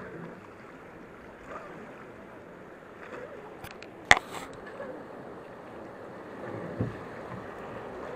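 Rushing river water around a wooden boat running through rapids, a steady wash. About four seconds in there is a sharp, loud knock, and near seven seconds a duller thump, as the camera is handled and bumped.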